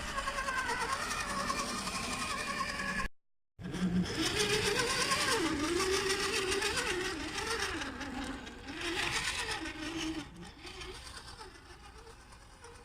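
Axial SCX10 II radio-controlled crawler's electric motor and gears whining, the pitch rising and falling with the throttle. The sound cuts out for half a second about three seconds in, then fades over the last few seconds.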